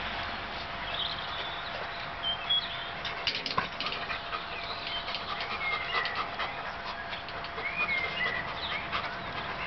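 A labradoodle tugging and chewing at a rubber play ring stuck in a wrought-iron gate. The metal gate rattles and clinks in scattered knocks, with a few short high squeaks between them.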